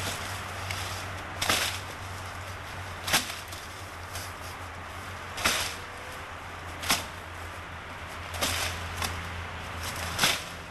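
Sharp cracks from karate strikes and kicks, seven in all and irregularly spaced, some a little drawn out.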